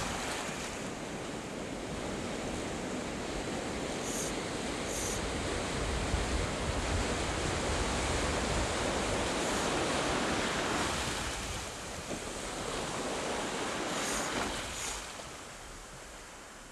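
Sea surf washing onto the shore, swelling and easing off, with wind buffeting the microphone. A couple of short high hisses come twice, about four and fourteen seconds in.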